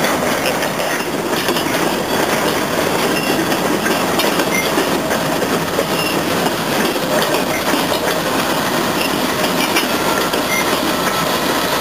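Freight train of open hopper cars rolling past close by, a steady loud noise of steel wheels on the rails, while CSX diesel locomotives come by on the adjacent track.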